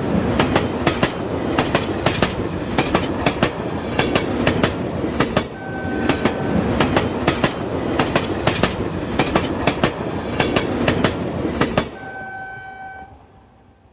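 Express passenger train running at speed, heard from inside a coach: a loud rumble with a quick, uneven stream of wheel clicks over the rail joints. A short steady horn note sounds about midway and again near the end, after the running noise drops away sharply about twelve seconds in.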